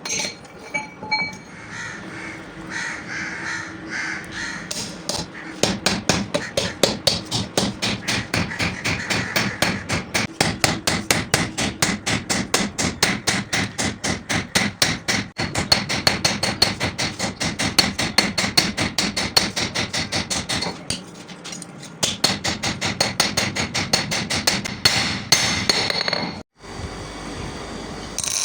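Hammer blows on steel at the anvil, forging a cultivator blade into an axe head: a few uneven strikes at first, then a long, fast, steady run of blows that stops a couple of seconds before the end.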